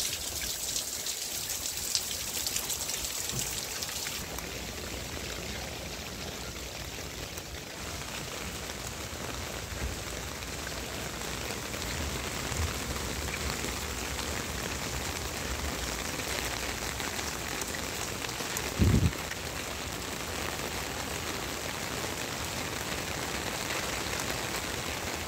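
Steady rain falling, with a brief low thump about three-quarters of the way through.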